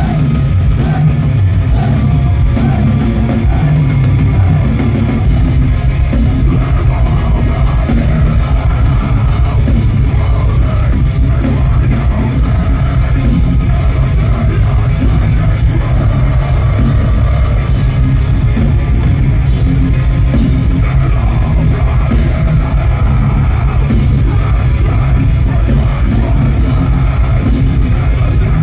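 Deathcore band playing live at full volume: heavily distorted electric guitars and a pounding drum kit with vocals over the top. The level stays steady and loud throughout.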